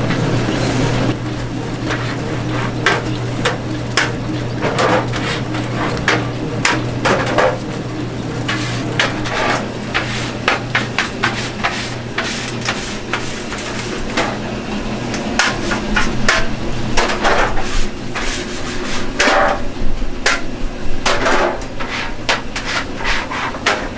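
Irregular knocks and taps of hand food preparation, such as utensils striking a board or pan, over a steady low hum.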